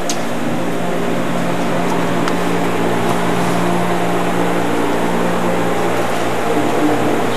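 Steady droning hum over a hiss, with a faint click or two.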